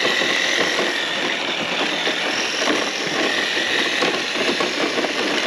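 Traxxas TRX-6 6x6 RC truck's Titan 550 electric motor and geared drivetrain whining steadily as it crawls along in low range.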